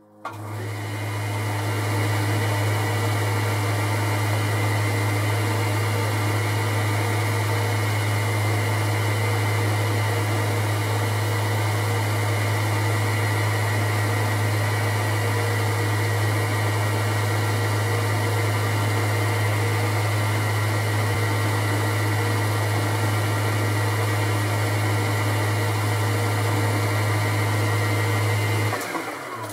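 Boxford lathe switched on, running up to speed over a second or two, then running with a steady low motor hum while turning an aluminium stud down. It is switched off near the end and spins down.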